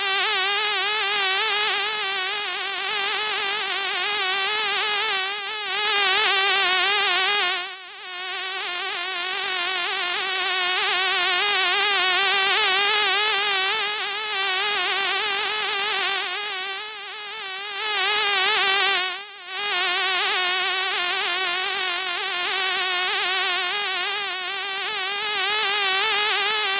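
A fly buzzing continuously, its drone wavering up and down in pitch. The buzz briefly cuts out twice, about eight seconds in and about nineteen seconds in.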